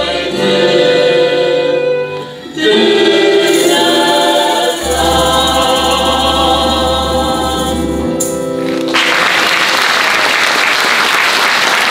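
A Christmas folk choir of mixed voices singing with violin, guitar and bass drum accompaniment, briefly pausing between phrases about two seconds in. The song ends about nine seconds in and the audience breaks into applause.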